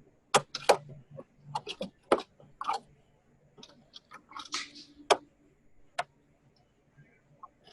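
Butter knife chipping and scraping at ice in a refrigerator's frozen defrost drain hole: irregular sharp clicks and taps, with a longer scrape about four and a half seconds in.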